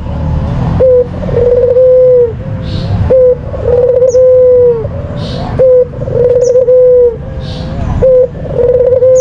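White ringneck dove (puter putih, the Barbary dove) cooing. Each call is a short note followed by a longer, level coo, and it repeats about every two and a half seconds, four times.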